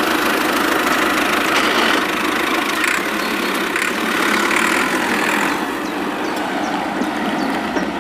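Small motor and gearbox of a DIY mini tractor running under load, a steady gritty whirring.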